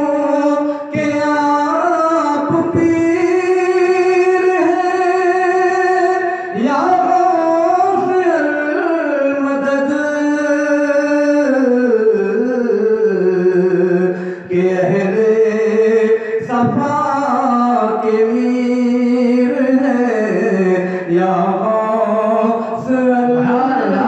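A man singing an Urdu devotional naat in long, drawn-out held notes that glide slowly from pitch to pitch, with only short breaks for breath.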